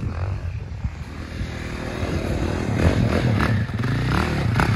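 KTM 450 SX quad's single-cylinder four-stroke engine running, growing louder from about two seconds in as it is ridden.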